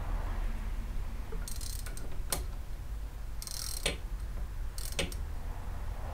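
A hand ratchet wrench ratcheting on the connecting-rod cap nuts of a Ford Model T engine, in three short spells each ending in a sharp click, over a steady low hum.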